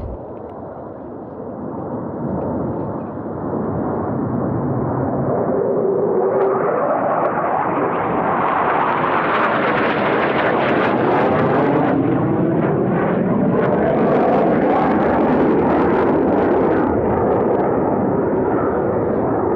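Boeing F/A-18 Super Hornet jets flying past after breaking formation. Their noise swells over the first few seconds and stays loud, with a slowly sweeping, phasing tone as the jets move overhead.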